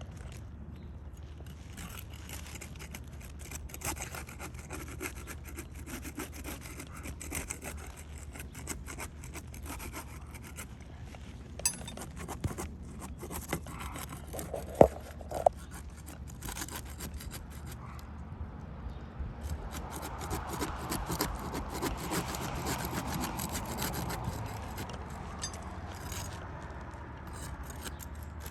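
Rough scraping and rubbing of a tool worked under asphalt roof shingles to break their adhesive seal strips loose. A few sharp clicks come about halfway through, and the scraping gets heavier in the latter part.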